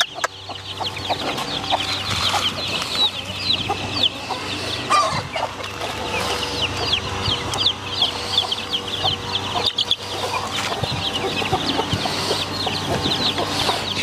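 Many parrot-beak chicks about a month old peeping without pause, a dense stream of short, high, falling cheeps, with lower hen clucks now and then.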